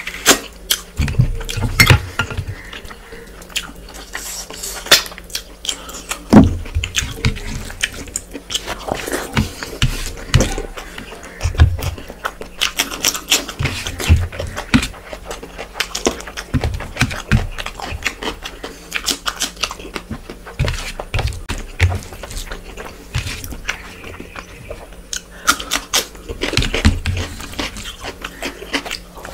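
Close-miked wet chewing and lip-smacking while eating rice and curry by hand, a quick run of short clicks and smacks. Fingers mix and scrape rice across a metal plate now and then.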